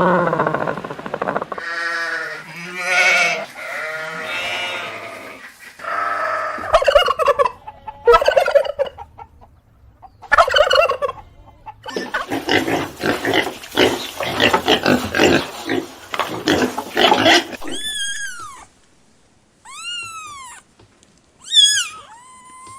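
A run of farm animal calls, mostly poultry. First come several separate pitched calls, then about five seconds of dense, choppy turkey-like gobbling and clucking, then three or four short high calls that rise and fall.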